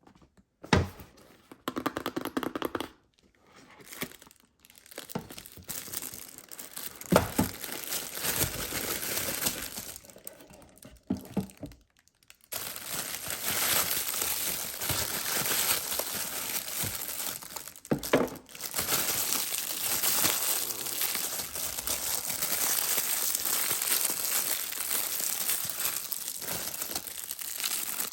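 Packaging being crinkled and torn open by hand: scattered rustles and a few sharp knocks at first, then steady crinkling from about halfway on.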